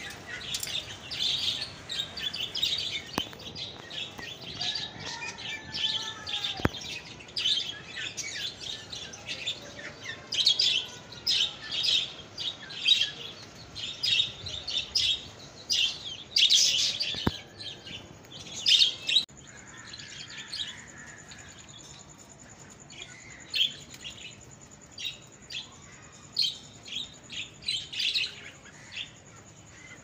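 Flock of budgerigars chirping and chattering, a rapid stream of short high chirps that thins out after about twenty seconds.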